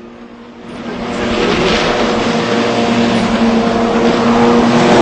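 Jet ski engine running at high revs, swelling in about a second in and then holding steady.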